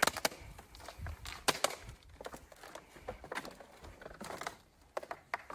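Footsteps on sandy, gritty ground: irregular light crunches and scuffs, a few sharper ones among them.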